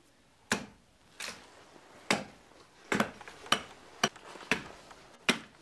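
A hatchet chopping into a piece of wood on a chopping block: about eight sharp strikes, unevenly spaced around half a second to a second apart.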